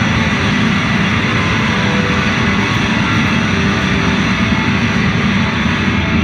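Instrumental post-rock band playing live at full volume: electric guitars and drums blend into a dense, steady wall of sound with no breaks. The audience phone recording blurs it into noise.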